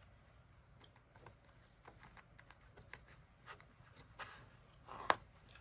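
Faint rustling and light clicks of a CD single's printed booklet and packaging being handled, with one sharper click about five seconds in.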